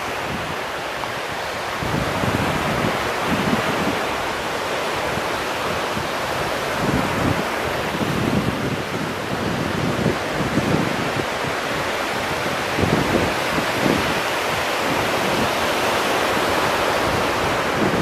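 Ocean surf: small waves breaking and washing onto the beach in a continuous wash, with wind gusting on the microphone underneath.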